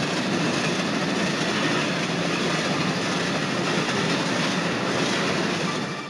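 Train running along a railway track: a steady noise of wheels on rail that cuts off suddenly near the end.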